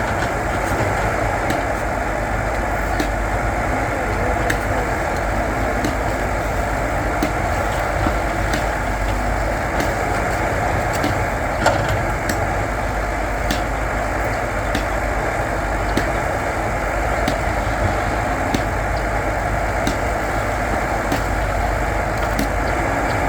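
Diesel engine of a backhoe loader running steadily, with scattered light ticks and one sharper knock about twelve seconds in.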